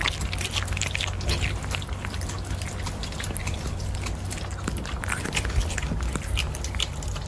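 Kittens eating meat: quick, irregular wet chewing and smacking clicks over a steady low hum.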